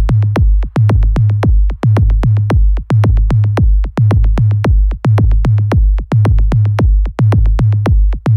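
Background music: an electronic dance track with a steady drum-machine beat over deep bass.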